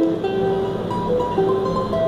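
Ten-string charango played solo, picking a melody note by note, with each plucked note ringing on briefly before the next.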